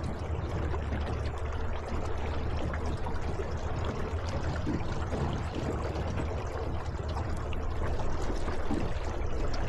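Water rushing and splashing steadily along the hull of a small aluminum boat under way on an electric trolling motor, with a constant low hum beneath.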